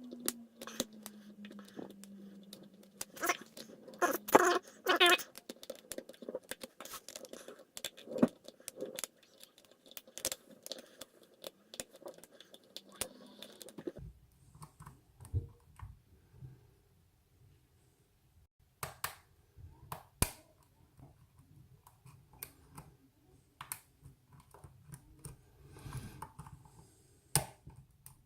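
Metal lock picks and a tension tool clicking and scraping inside a pin-tumbler lock cylinder as its pins are single-pin picked: irregular sharp clicks and light ticks. A faint low hum comes in about halfway.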